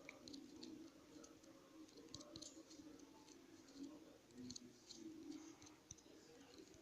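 Near silence with faint, irregular light clicks of taps on a phone's touchscreen keyboard.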